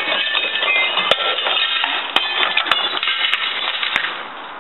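A window pane being smashed with a hammer: about six sharp blows at irregular spacing, with glass shattering and tinkling between them.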